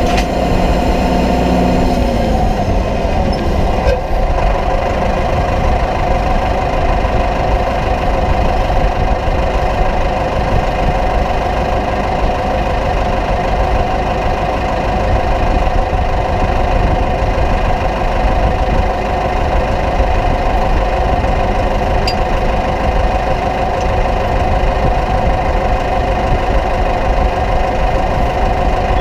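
Farm tractor's diesel engine running steadily, with a constant whine above the engine note. A lower hum slides down and fades out about two seconds in.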